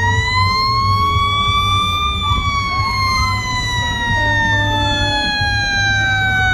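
Fire truck siren winding up to its highest pitch about two seconds in, then slowly winding down, with fainter siren tones gliding in the background and a low engine rumble underneath.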